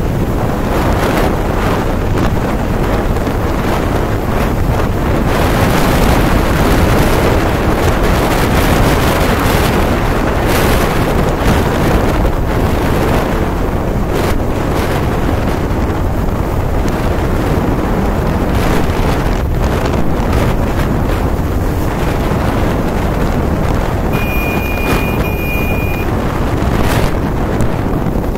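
Wind rushing over the microphone of a moving motorbike: a loud, steady roar of wind noise with no letup. Near the end a high steady tone sounds for about two seconds.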